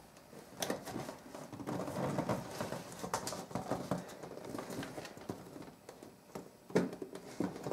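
Handling noise from a plastic storage bin and a sheet of cardboard being shifted and scraped on a wooden floor, with irregular light taps and rustles. The cardboard is being worked under the upturned bin that holds a trapped mouse.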